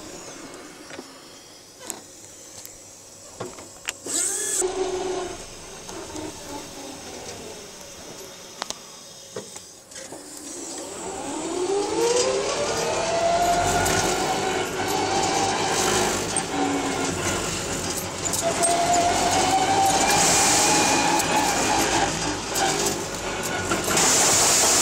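Forklift driving along. It is fairly quiet at first, with a few knocks and rattles. About halfway through, its drive whine rises in pitch as it speeds up and settles into a steady whine, which eases off briefly and climbs again.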